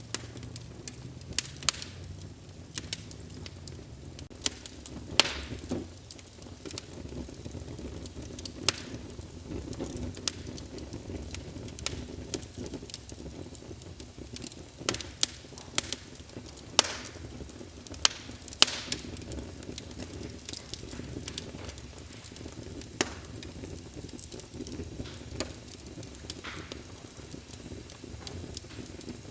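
Wood fire in a fireplace crackling, with sharp pops every second or so over a low, steady rumble of the flames; the loudest pops fall around the middle.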